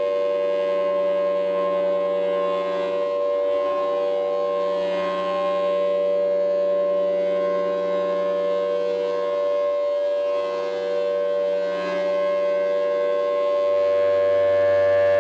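Outdoor warning (civil defense) siren sounding a steady tone, holding one pitch throughout, with slight swells in loudness.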